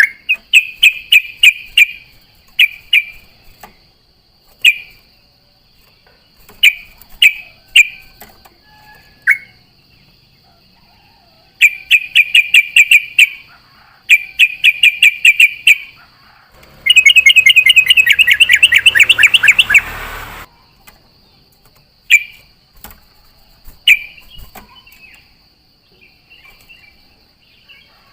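Yellow-vented bulbul (trucukan) singing: bubbly single chirps and short phrases, broken by several fast rattling runs of repeated notes, the longest lasting about three seconds. A faint steady high-pitched hum runs underneath.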